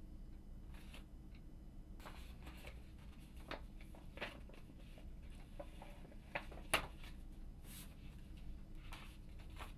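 Paper and envelopes being handled on a desk: faint rustles and small taps over a low room hum, with a sharper click about seven seconds in.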